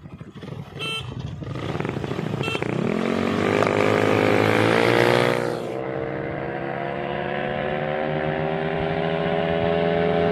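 Two short beeps, then two scooters launching hard in a drag race, one a built 180cc Yamaha Mio, their engines climbing steeply in pitch as they accelerate away. After a cut, a single scooter engine at high revs comes closer, growing slowly louder and higher.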